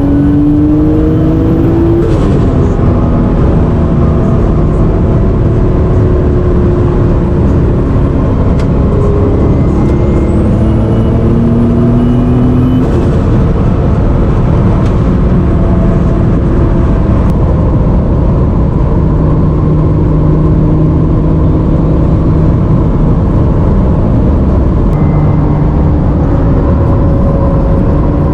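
Turbocharged NSX 3.0 V6 pulling hard twice, its pitch rising with a high turbo whistle climbing alongside. Each pull is cut off by a sudden break and a short rush of air as the throttle lifts and boost is released. After the second pull the engine runs at a steadier part throttle.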